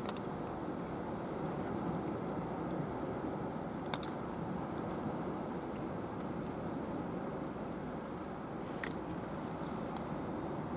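A cat crunching dry kibble: scattered sharp crunches, clearest about four seconds in and again near nine seconds, over a steady low background rush.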